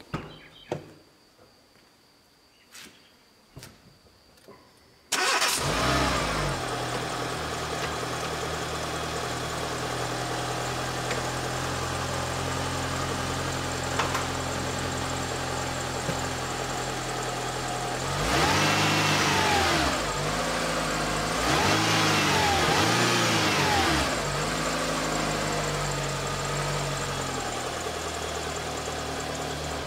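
A Renault Megane's four-cylinder petrol engine starts about five seconds in, catching at once, and settles into a steady idle. It is revved several times in two short bursts in the second half, then returns to idle. It is running on its old, mismatched ignition coils and spark plugs, and at first glance it works fine.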